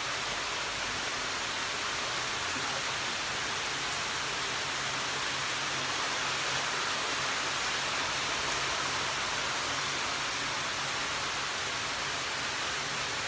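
Steady rush of water spilling over the edge into a koi pond, with a faint low hum underneath.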